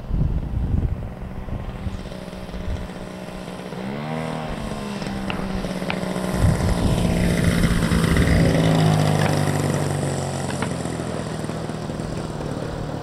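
52cc Taurus gas engine of a giant-scale RC Extra 330L airplane running at low throttle. Its pitch rises sharply about four seconds in, and it grows loudest near the middle as the plane passes close, then fades. There is wind noise on the microphone at the start.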